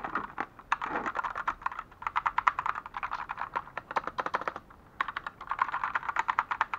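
Keys of a LINGBAO JIGUANSHI 87-key mechanical keyboard with black switches being pressed rapidly, a dense clatter of key clicks in runs, with a brief pause past the middle.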